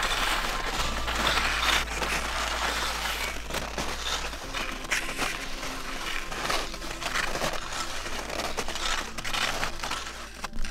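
Skis and ski poles crunching and scraping through snow in an uneven run of strides and pole plants, over a low sustained music bed.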